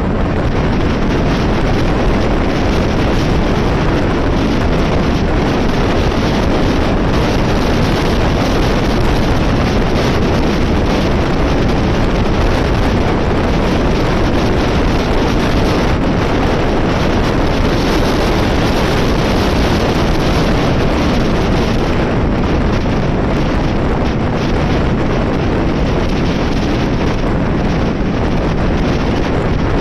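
Loud, steady wind noise buffeting the camera microphone on a moving motorcycle, drowning out the rest of the ride.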